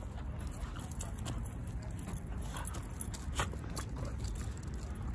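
Two dogs play-fighting on grass: scuffling and paw steps in dry leaves, with a few short dog noises and scattered light clicks, over a steady low rumble.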